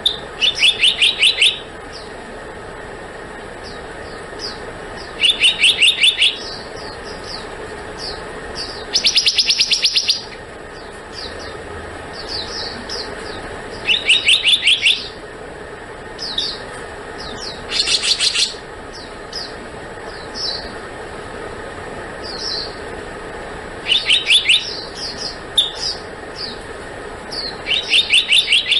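Black-naped monarch calling: short trains of rapid, evenly spaced high notes, each about a second long, repeated every four seconds or so. Scattered short single chirps fall between the trains.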